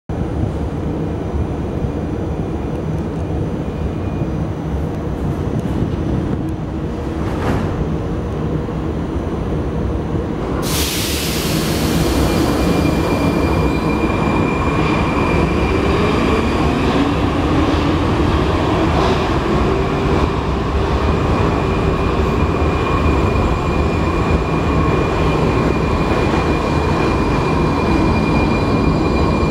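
Prague metro 81-71M train heard from inside the car as it pulls out of the station: steady rumble, a sudden loud hiss about ten seconds in, then the traction motors' whine rising in pitch as the train speeds up and levelling off into steady running noise of wheels on rails.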